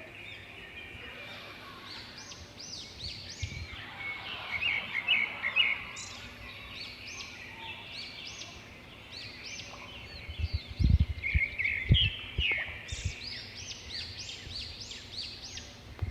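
Small birds singing and chirping: a continuous stream of quick, high, arched notes repeated in runs. A few low thumps stand out about two-thirds of the way in.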